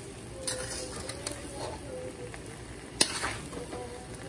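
Metal spoon stirring and scraping fried rice around a hot wok, the rice sizzling, with a sharp clank of the spoon against the pan about three seconds in.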